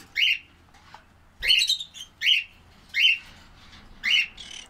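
Pet conure calling: about five short, loud calls, roughly one a second.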